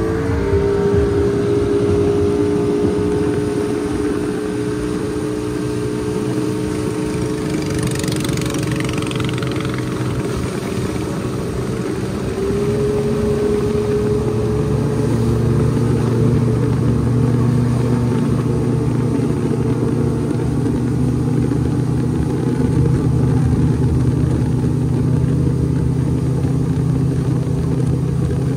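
River speedboat's engine running at speed, a steady high engine note that steps up slightly in pitch about twelve seconds in, over the rush of water and spray along the hull.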